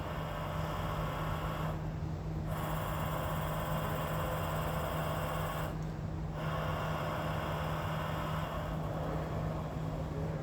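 Chevalier CNC vertical mill's table being power-jogged along the X axis with the spindle stopped: the axis drive motor whines steadily, stops briefly twice as the move pauses, and fades out near the end, over a constant electrical hum.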